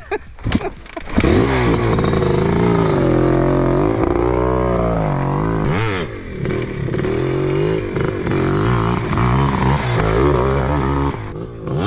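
Yamaha two-stroke dirt bike engine revving hard under acceleration, pitch climbing and falling again and again with throttle and gear changes as the rider accelerates and lifts the front wheel in a wheelie. The engine comes in about a second in and drops off near the end.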